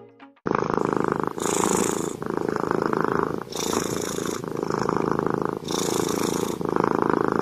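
A cat purring loudly and close, in a steady rhythm of alternating in-breath and out-breath phases of about a second each. It starts abruptly about half a second in.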